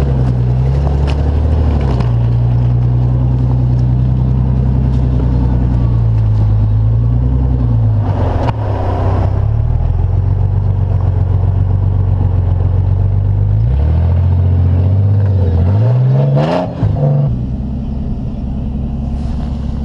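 Rock crawler's engine running under load as it climbs a rock ledge, its revs falling and rising twice, with a short clatter each time. Slightly quieter near the end.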